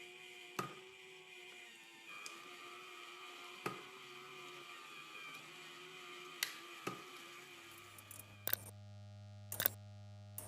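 Faint steady hum with a few sharp, scattered clicks or knocks, one every couple of seconds; a lower hum comes in about three-quarters of the way through, with more quick clicks near the end.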